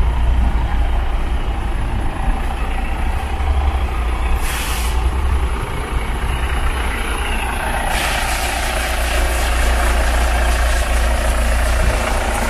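Vehicle noise: a steady low rumble, a short hiss of air about four and a half seconds in, and a louder rushing noise that sets in at about eight seconds.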